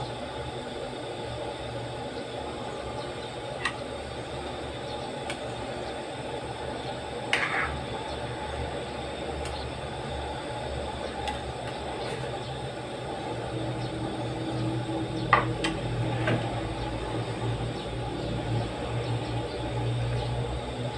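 Gas burner running steadily under a pan of coconut-milk soup being brought to the boil, its low rumble growing stronger in the second half. A few light clicks of a metal spoon against the pan.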